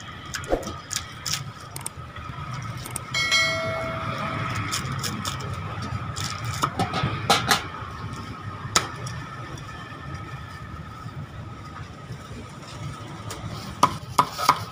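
Cleaver striking crispy pork belly on a wooden chopping block: scattered single chops, then a quicker run of about three chops a second near the end, over steady background noise with a brief pitched tone a few seconds in.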